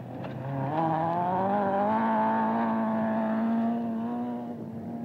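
Opel Manta rally car's engine revving up, its pitch climbing in a couple of steps over the first two seconds, then holding steady before easing off near the end.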